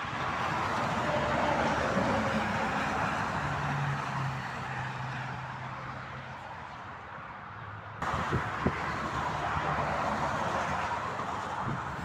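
Highway traffic going past close by: tyre and engine noise from a coach and cars, with a low steady engine hum partway through. The sound changes abruptly about eight seconds in.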